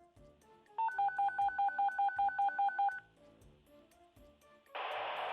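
Radio dispatch alert: a rapid train of about eleven short dual-tone beeps, touch-tone style, over about two seconds, then near the end a loud burst of radio static, like a channel keying up before an ambulance call.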